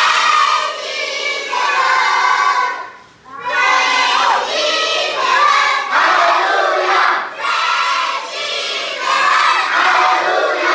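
A large group of children shouting and singing together in loud phrases, with a short pause about three seconds in.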